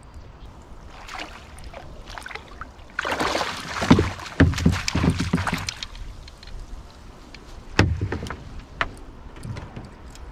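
A hooked fish splashing at the water's surface beside a kayak as it is scooped into a landing net. The splashing lasts a couple of seconds in the middle, with knocks of the net and gear against the kayak hull, one sharp knock coming later.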